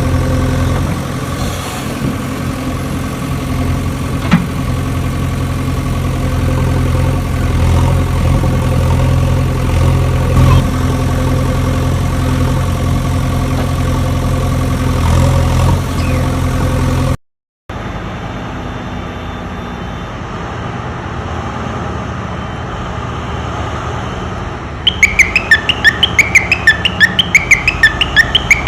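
Steady engine-like drone, low and even, that cuts off about two-thirds of the way through. A quieter hum follows, and near the end a fast run of high chirps, about five a second.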